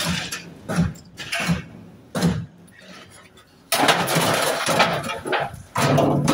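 Scrap being handled in the back of a van: a few knocks, then loud scraping and clattering as items are pulled out.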